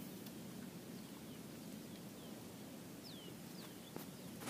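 Faint outdoor background noise, low and steady, with several short, falling bird chirps scattered through it, the clearest about three seconds in.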